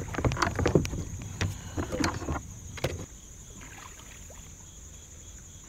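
Paddle and gear knocking and bumping against a kayak, a quick run of sharp knocks in the first three seconds, then quieter. A steady high chirring of crickets runs underneath.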